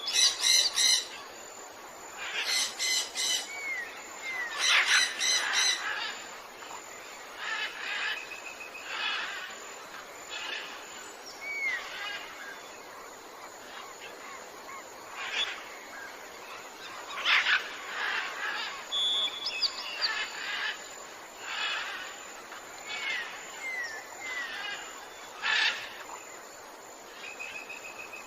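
A chorus of songbirds calling and singing: rapid series of chirps and short whistled notes that slide in pitch, from several birds at once. A steady background hiss runs underneath. The loudest bursts come in the first few seconds.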